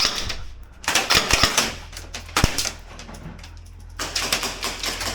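Airsoft guns firing in rapid bursts: three fast clattering strings of shots, with a single sharper shot between the second and third.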